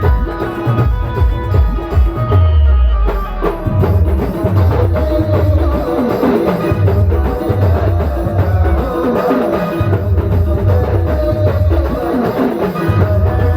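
Adivasi band playing live: a steady, heavy drum beat under a melody.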